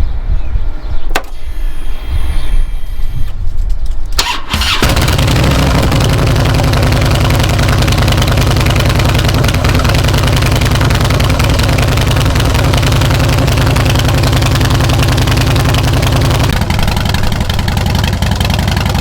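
Cold start of a 2009 Harley-Davidson Dyna Super Glide's Twin Cam 96 V-twin through Vance & Hines exhaust pipes. Uneven sounds for about four seconds, then the engine catches and settles into a loud, steady idle with a deep rumble. Its note shifts slightly near the end.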